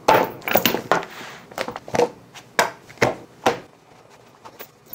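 Kitchen handling: a string of short knocks and taps, roughly two a second, like things being set down and moved on a wooden cutting board.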